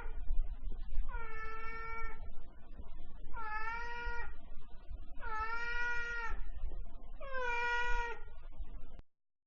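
Domestic cat meowing repeatedly: after the end of one call, four drawn-out meows of about a second each come a couple of seconds apart, each dropping in pitch at the start and then holding. The sound cuts off suddenly near the end.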